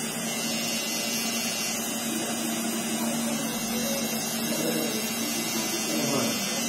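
Cordless T-blade hair trimmer (outliner) running with a steady hum as it trims stray hairs along the hairline.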